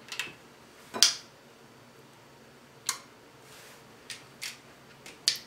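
Close-up eating and handling noises: about six short, sharp clicks and smacks spread over a few seconds, the one about a second in the loudest.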